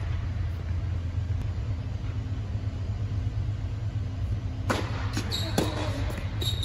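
Steady low hum of the air-supported tennis dome's blowers. Near the end, a tennis ball is struck twice about a second apart, followed by a short high squeak.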